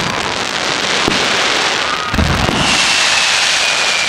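Aerial fireworks crackling and bursting, with a deep boom about two seconds in. Then comes a loud hiss and a long whistle that falls slightly in pitch.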